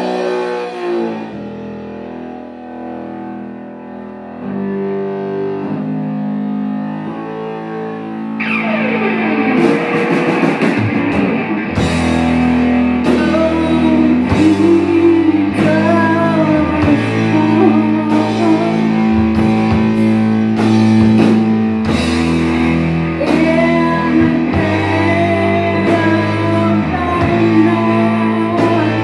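Live rock band playing: it opens with held keyboard and guitar notes, then about eight seconds in the full band comes in loud, with drum kit, electric guitars and a woman singing.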